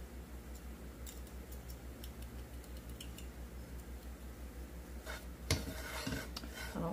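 Coil whisk stirring flour and onions in a nonstick skillet: faint light clicks and scrapes at first, then louder scraping with a sharp clank about five and a half seconds in, over a low steady pulsing hum.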